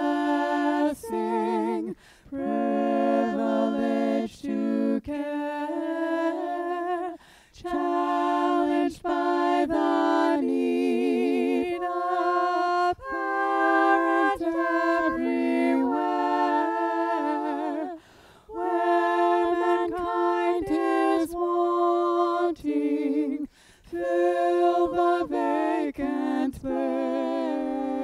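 A voice singing a slow hymn, with vibrato on the held notes and short pauses between phrases.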